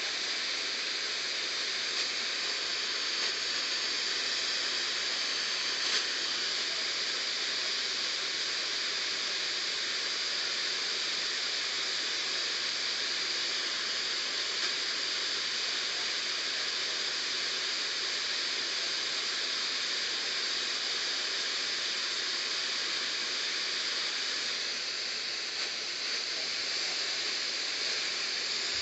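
Steady radio static hiss from a weather radio receiver on an open channel with no programme audio, with one faint click about six seconds in.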